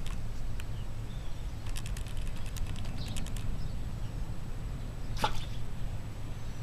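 Outdoor background with a steady low rumble, faint bird chirps, a quick run of clicks about two seconds in, and one short sharp sound just after five seconds.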